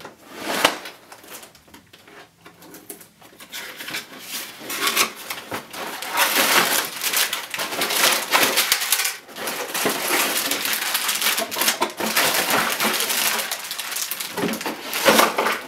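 Cardboard box flaps being opened, then plastic bags of LEGO pieces crinkling and rustling as they are pulled out of the box, dense and crackly from about six seconds in.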